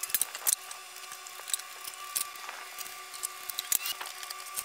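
Scattered light clicks, taps and knocks of hand tools and hardware being handled, over a steady faint hum.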